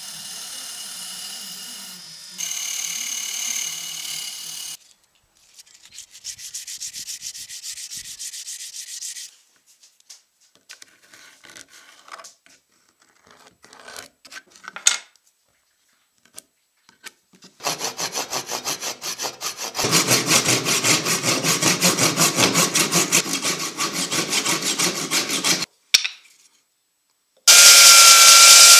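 A power drill runs against a rusty steel screwdriver shaft and gets louder about two seconds in. After a short pause come bursts of rapid rhythmic rubbing strokes. Near the end a Parkside handheld belt sander runs loud and steady with a whine, sanding a small wooden handle piece.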